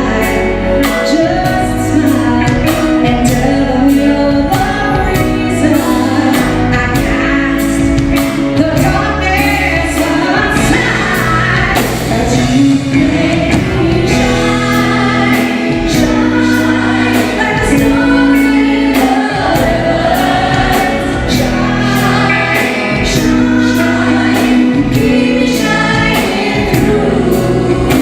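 Live band music with singing over a steady drum beat and bass line.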